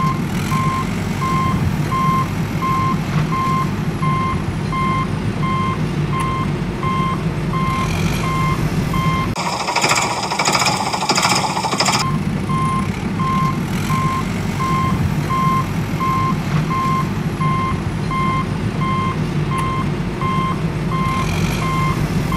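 Reversing beeper sounding a steady run of evenly spaced beeps over a steady heavy-vehicle engine rumble. About nine seconds in, the beeping and rumble give way for roughly two and a half seconds to a louder, higher noisy sound, then resume.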